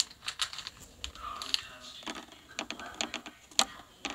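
Irregular clicks and taps of typing on a phone's on-screen keyboard, a few a second, the sharpest about three and a half seconds in.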